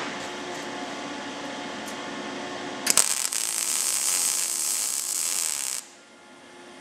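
A steady hum, then about three seconds in a MIG welding arc strikes on thin sheet steel. It sizzles with a steady hiss for about three seconds as a short weld run is laid, then cuts off suddenly.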